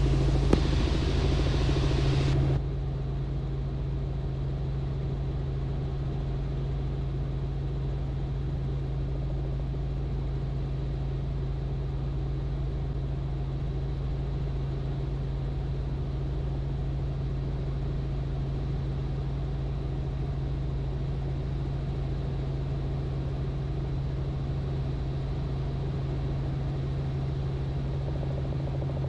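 Robinson R44 helicopter in flight, heard from the cabin: a steady low drone with a strong hum. A hiss that sits over it stops sharply about two and a half seconds in, and the drone runs on slightly quieter.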